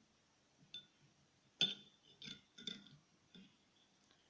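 Light clinks and taps against a bowl, about five of them with a short ring after each, the loudest about a second and a half in, as squeezed lemon halves are dipped into a coffee-and-lemon scrub mixture.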